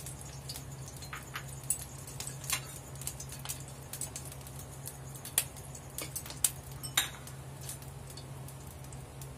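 Oil heating in a nonstick frying pan, with scattered light clicks and clinks of kitchenware, a few of them sharper, over a steady low hum.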